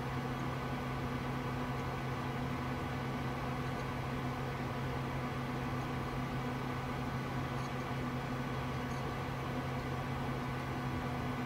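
Steady whir and hum of a running desktop PC's cooling fans and power supply, a constant low drone over an even hiss.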